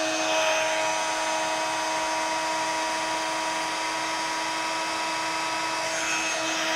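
Embossing heat tool running, a steady fan whine that winds down in pitch as it is switched off at the very end.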